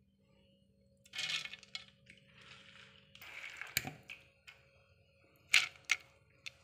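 Soaked urad dal being handled in a mixer jar: a few short swishes of wet grains shifting, then several sharp clicks and knocks against the jar, over a faint steady low hum.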